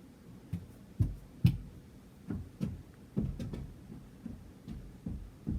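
A string of soft, irregular low thumps and knocks, roughly two a second, the loudest about one and a half seconds in.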